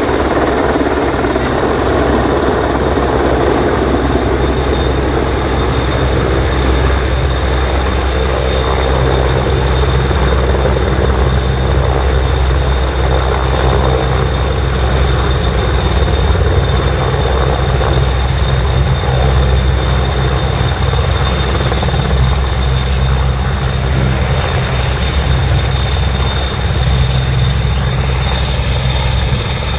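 AgustaWestland AW101 Merlin three-engined helicopter hovering low and descending to land, loud and steady: deep rotor beat with a steady high turbine whine over it.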